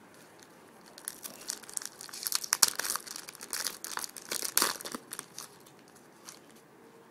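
A 2009 Topps Platinum trading-card pack wrapper being torn open and crinkled by hand: a few seconds of dense, irregular crackling, loudest in the middle.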